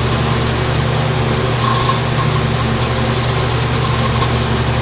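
Microwave oven running: a steady electrical hum with fan noise and no sparking crackle heard.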